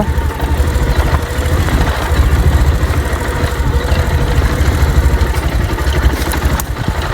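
Motorcycle engine chugging at low speed over a rough off-road track, with a sharp knock about six and a half seconds in.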